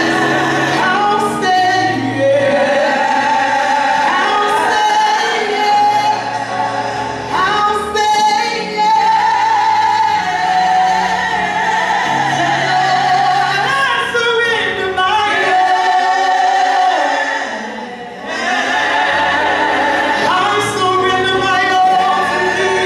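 A group of women singing gospel music into microphones, with instrumental backing and a bass line. The music eases off briefly about three quarters of the way through, then comes back up.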